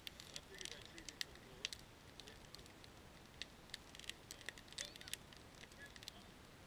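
Small campfire of split logs crackling, with irregular sharp pops and snaps several times a second.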